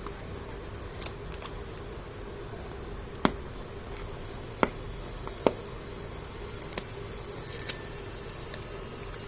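Packaging being handled: a few brief rustles and three sharp clicks or taps, spaced a second or so apart, over a faint steady hum.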